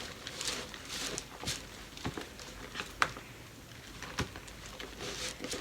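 Gloved hands mixing a glue and shaving-cream slime mixture by hand: faint, scattered short clicks about a second apart.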